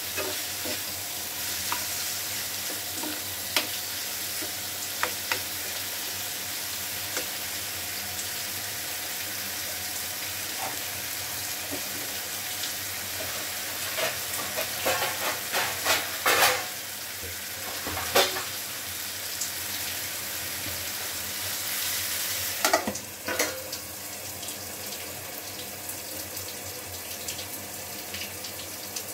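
Paneer, tomato and onion sizzling in oil in a frying pan, with a steel spoon scraping and clinking against the pan as it is stirred, busiest around the middle. A couple of metal clanks come about three quarters of the way in, as a steel plate is set over the pan as a lid, and the sizzle is a little quieter after that.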